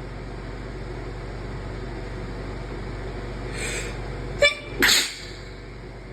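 A person's induced sneeze: a breathy in-breath, then a sharp short burst and a louder, longer blast close behind it, about four and a half seconds in. A steady low hum runs underneath.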